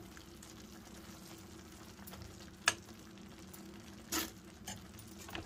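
Steel ladle stirring thick bean curry in an earthenware pot: a sharp clink of metal on the pot about two and a half seconds in, and a short scrape a little after four seconds, with a few lighter taps, over a faint steady background.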